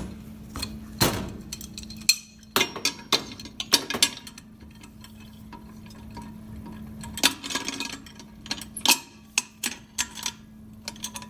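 Metal parts of an Ampco C-Series centrifugal pump clinking and knocking as the casing is fitted onto the back plate: irregular sharp clicks in several clusters, over a steady low hum.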